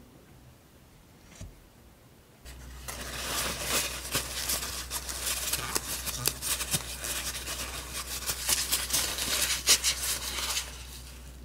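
Kitchen paper towel rubbing and crinkling against a small apple as it is dried by hand: a dense, scratchy rustle that starts a couple of seconds in and stops about a second before the end.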